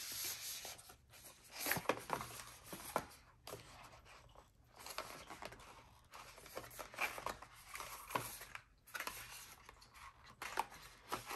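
Cardboard packaging handled by hand: a box flap opened and a stiff inner sleeve slid out and folded open, with irregular scraping, rustling and small clicks of card against card and the desk.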